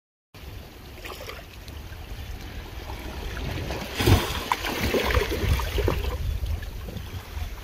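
Small waves lapping on a sandy shore, with wind rumbling on the microphone. The sound grows louder, with a loud burst about four seconds in.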